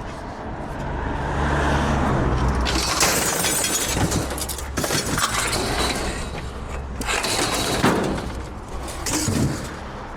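Scrap metal and junk being thrown onto a load, clattering and crashing with a breaking, shattering sound, for several seconds from about two and a half seconds in.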